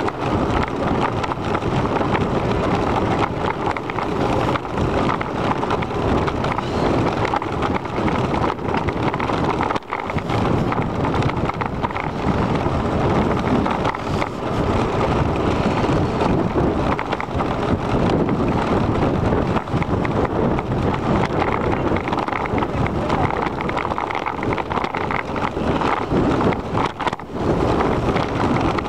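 Steady rush of wind buffeting the camera's microphone on a moving bicycle, mixed with the bike's tyre and road rumble.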